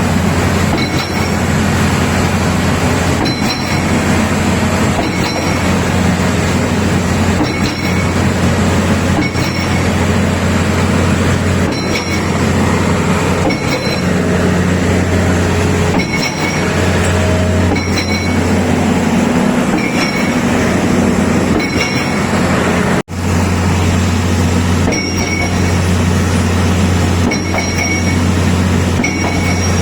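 YC 17 hydraulic impact pile-driving hammer cycling on test: a steady low hydraulic drone with a sharp metallic blow about every two seconds, each blow ringing briefly. The sound cuts out for a moment about two-thirds of the way through.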